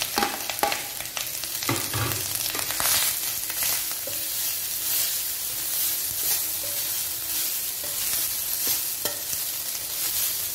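Cooked rice being stir-fried in ghee with fried drumstick leaves in a stainless steel pan: a steady sizzle, with repeated scrapes and clinks of a metal slotted spoon against the pan as it is stirred.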